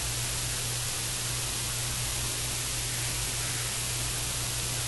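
Steady hiss with a low hum underneath: the recording's background noise, with no other sound.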